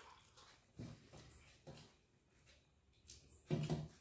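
People drinking water in gulps, from a cupped hand and a steel tumbler: a few soft swallows, then a louder short throaty sound about three and a half seconds in.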